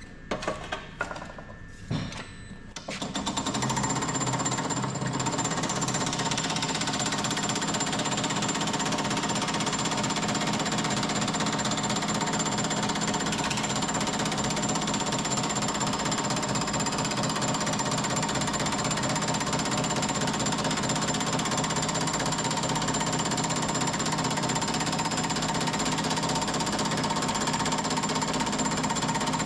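A few light knocks, then about three seconds in a power hammer starts and runs steadily, its rapid strokes merging into one continuous hammering as a homemade profile die works sheet steel.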